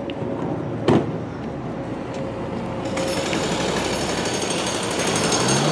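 A car door thuds shut about a second in, then a steady rattling noise runs on as the grey Audi Q5 SUV pulls away, growing brighter and hissier from about three seconds in.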